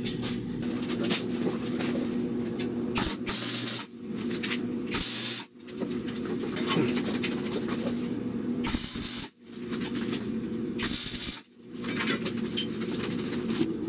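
Workshop noise in several short shots: clatter of tools and gear being handled, several half-second hisses, and a steady low hum, broken by four abrupt cuts.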